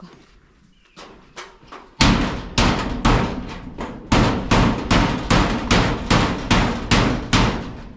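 Hammer striking repeatedly, a few light taps and then steady loud blows about two to three a second, each with a short ringing tail, typical of nailing during building work.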